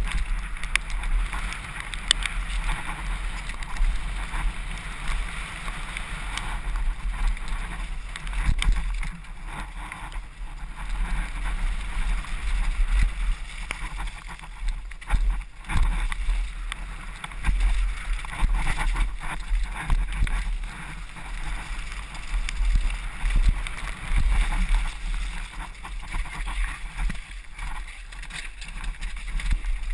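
Wind buffeting a helmet-mounted action camera's microphone during a fast mountain-bike descent of a rough dirt and rock trail, with a steady low rumble and the tyres and bike rattling and knocking over bumps throughout.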